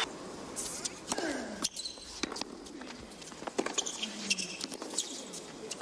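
Tennis arena crowd hushed between points: a low murmur with a few scattered voices, and several sharp taps and knocks.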